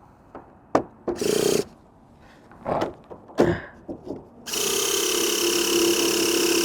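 A few clicks and knocks of handling, then about four and a half seconds in a nitro RC truck's electric starter starts to whir steadily, spinning the engine over without it firing.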